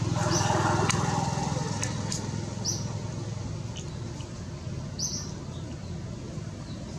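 Outdoor ambience: a steady low hum, with short high chirps about every two and a half seconds and a few faint clicks.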